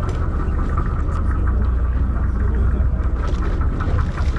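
Steady low rumble of a sportfishing boat's engine running, mixed with sea and deck noise, with a few faint clicks.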